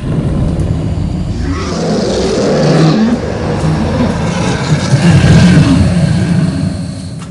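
Loud, low, rough growling roar, a sound effect played for an animatronic wolf prop. It swells to its loudest past the middle and fades near the end.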